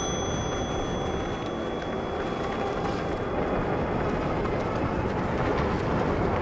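Steady wind rush over the microphone and tyre noise from a Super73 RX electric motorbike rolling along pavement at speed. A high, thin ringing tone fades out over the first two or three seconds.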